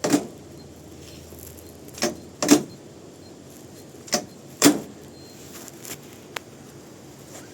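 Smart bike lock being slammed shut: a series of sharp metal clanks, five knocks with the later ones in pairs about half a second apart, then a small click near the end.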